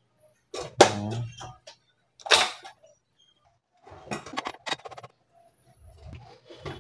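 Clunks and clinks of a gas stove's metal burner parts and body being handled: a knock with brief ringing about a second in, a sharp clack a little after two seconds, then a run of light rattling clicks.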